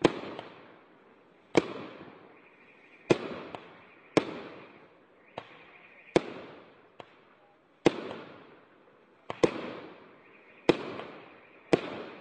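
Celtic Fireworks Nebula Storm 25-shot cake firing: a sharp bang about every second and a half, each trailing off, with a few smaller pops in between.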